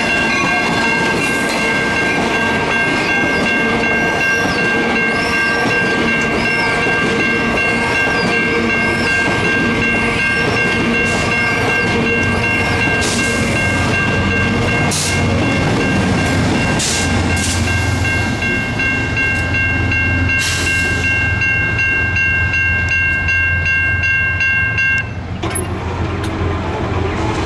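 Amtrak Cascades Talgo passenger cars rolling past a grade crossing, with wheel clicks and rumble, while the crossing bell rings steadily. The bell cuts off sharply about 25 seconds in, and a low diesel engine drone carries on.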